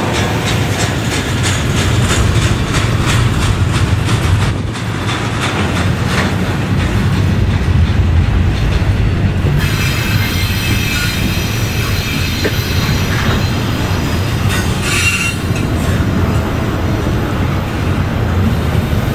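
Double-stack intermodal container train rolling past at close range: a steady heavy rumble of wheels on rail, with regular clicks over the rail joints in the first several seconds and thin, high wheel squeals from about halfway on.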